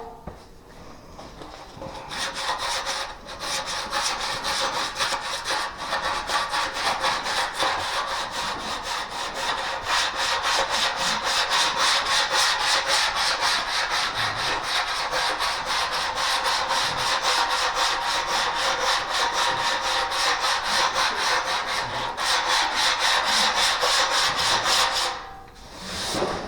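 Sanding block rubbed back and forth over a car body panel in steady, rapid strokes, starting about two seconds in and stopping near the end. This is block sanding, which shows up the low spots in the panel.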